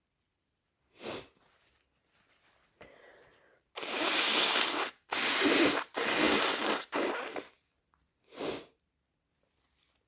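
A person sneezing: a fit of several loud, wet sneezes in quick succession, deliberately induced, starting about four seconds in. A shorter sneeze or sniff comes about a second in and another near the end.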